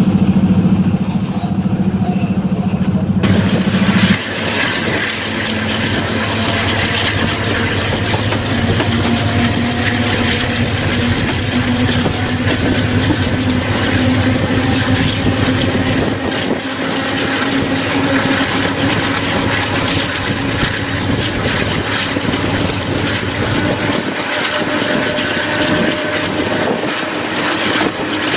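Moving train: wheels running on the track with a steady rumble and clatter. A low drone drops away about four seconds in, leaving the wheel and rail noise.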